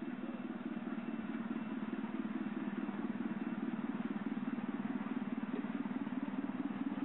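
Ride-on miniature railway locomotive with diesel-outline bodywork, hauling passenger carriages along the track, with a steady, rapidly pulsing drive drone that grows a little louder about three seconds in as it draws level. The onlooker takes it for a battery-electric loco rather than a diesel.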